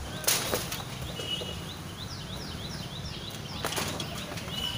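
Rustle and clatter of rubble, rebar and wood being shifted by hand, in two short bursts. Between them a bird repeats short sliding calls, about four a second.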